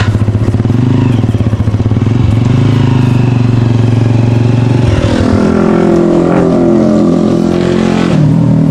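A vehicle engine running steadily, its note changing about five seconds in as the engine speeds up.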